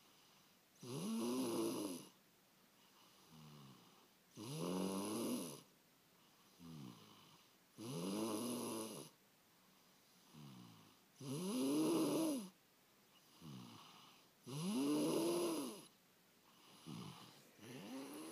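Snoring in sleep: five rough snores about every three and a half seconds, each with a pitched tone that rises then falls, and softer breathing noises between them.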